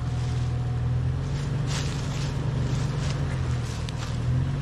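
Four-wheel-drive SUV engine running at low revs, with a low, fairly steady note, as it crawls up a rocky climb.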